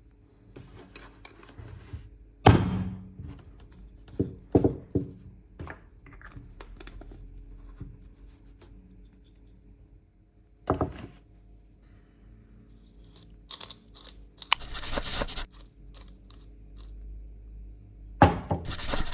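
Disposable pepper grinder being handled: scattered knocks and clicks, then two short noisy bursts, the second at the very end.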